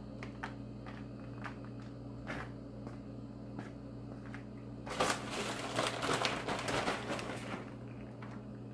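Plastic bag of shredded cheddar rustling and crinkling, with scattered light clicks, as handfuls of cheese are sprinkled over macaroni in foil pans; the rustling is densest for a couple of seconds past the middle. A steady low hum runs underneath.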